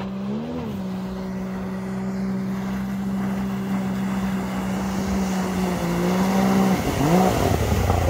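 Water-jet outboard motor of a RIB boat running at steady speed and growing steadily louder. The engine note rises briefly about half a second in, then dips and swoops back up near the end as the throttle changes.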